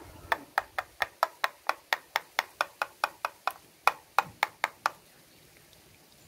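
Stainless-steel mixer-grinder jar being tapped, upside down, in a quick even run of sharp knocks, about five a second, that stops about five seconds in. The tapping knocks the last of the ground leaf paste out into a sieve.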